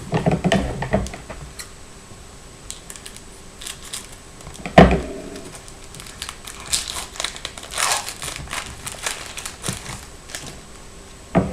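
A Panini Crown Royale 2011-12 hockey card pack wrapper crinkling and tearing as it is opened, in scattered crackles and rustles, with one thump about five seconds in.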